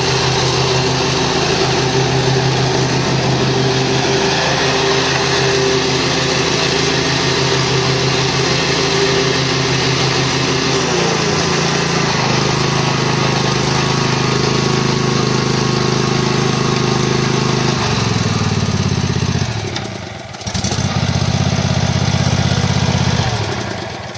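A 2005 Exmark Viking 48-inch hydro zero-turn mower's 15 horsepower engine running, its speed shifting about halfway through and again later. It dips briefly, picks up again, then winds down and stops near the end.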